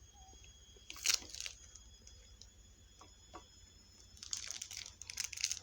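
Slime being squeezed out of a plastic piping bag: a short squish about a second in, a couple of faint clicks, then a run of small crackling squishes near the end.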